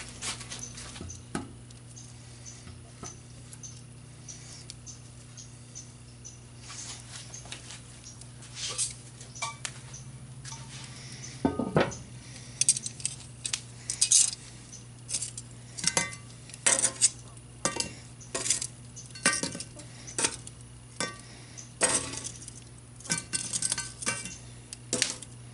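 Steel tongs clinking against a cast iron Dutch oven lid as lumps of natural charcoal are set on it: a run of sharp clinks and knocks, sparse at first and coming thick and fast in the second half.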